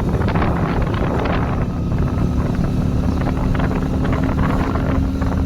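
Motorcycle engine running while riding on the road, with wind buffeting the microphone. A steady engine hum comes in about two seconds in.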